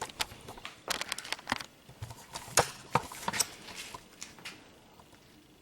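A run of small, sharp clicks and crackles, brittle plastic and old rubber being pulled and handled while the outer window trim and weatherstrip of a car door are worked off, dying away after about four seconds.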